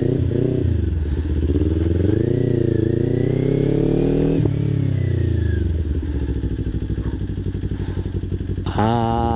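Motorcycle engine running while riding, its pitch rising and falling with the throttle, then settling lower and steadier about halfway through after a click. Near the end a brief louder sound with a high hiss comes in over it.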